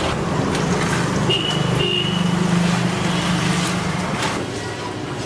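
Road traffic: a steady engine rumble, with a brief high tone about a second and a half in.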